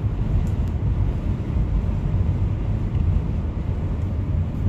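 Steady low rumble of a 1995 Ford F-150 cruising on the road, heard from inside the cab: engine and tyre noise at an even pace.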